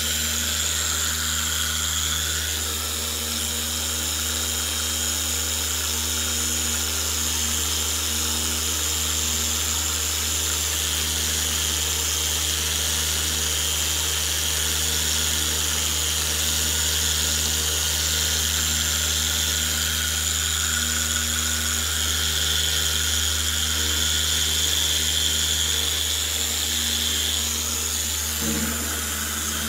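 Corded electric polisher running steadily, its foam pad buffing polishing compound on a plastic headlight lens, with a brief wobble in the sound near the end.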